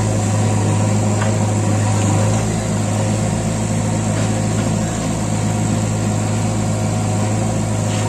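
JCB 3DX backhoe loader's four-cylinder diesel engine running at a steady, even pitch while the backhoe arm is worked.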